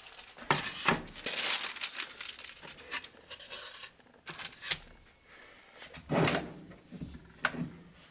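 Irregular handling noise: rustling and scraping, with a few sharp clicks and knocks, as objects are moved and set down.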